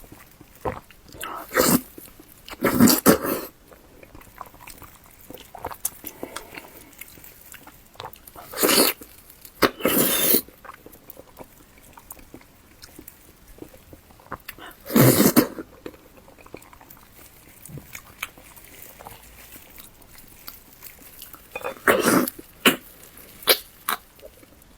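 Close-up eating sounds of a person chewing spicy pig skin: steady wet mouth clicks and chewing, broken by about six loud, short bursts of breathy mouth noise.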